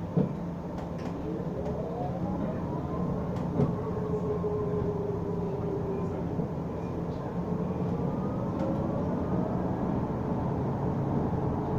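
Interior of a moving bus: a drivetrain whine rises in pitch as the bus accelerates, levels off into a steady tone, then climbs again near the end, over a steady low drone of running and road noise. A couple of sharp knocks of rattling fittings stand out, one at the start and one about three and a half seconds in.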